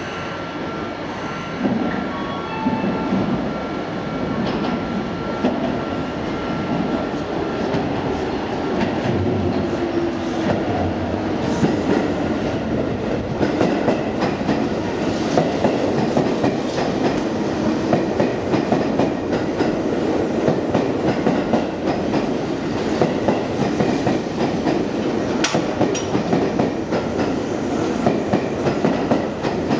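Seibu 6000 series electric train pulling into a station, its wheels clicking steadily over rail joints, with a motor whine that falls in pitch as it slows.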